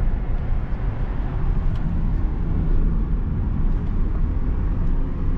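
Steady low rumble of a 2012 Hyundai Azera's 3.0 V6 running on a test run after new spark plugs and coils, with no misfire, though the engine is said to run rough.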